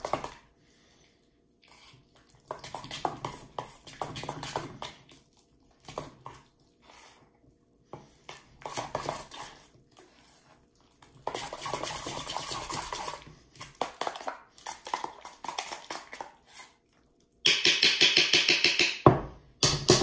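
A metal spoon stirring thick yogurt and cucumber in a stainless steel bowl, scraping and clinking against the steel in uneven bouts of strokes with short pauses between them. The loudest, quickest scraping comes near the end.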